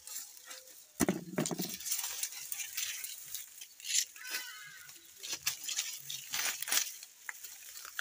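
Close-up crackling and rustling of a ripe banana being peeled and bitten, with a dull bump about a second in.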